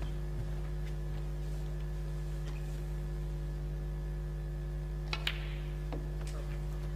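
Steady electrical mains hum in the broadcast sound. About five seconds in come two sharp clicks a fraction of a second apart, then a fainter one: the cue tip striking the cue ball and snooker balls colliding during the break.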